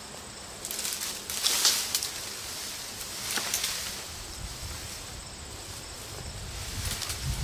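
Leafy cut branches rustling and swishing as they are dragged through brush, loudest about a second in and again around three seconds.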